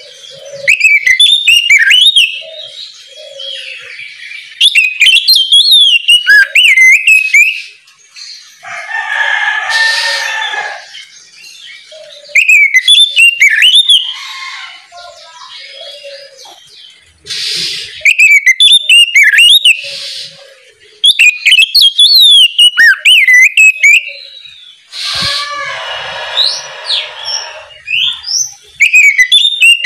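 Oriental magpie-robin (kacer) singing: loud bursts of rapid, varied whistled phrases a few seconds long, repeated with short gaps. Twice, about ten seconds in and again near the end, harsh rasping calls take the place of the whistles.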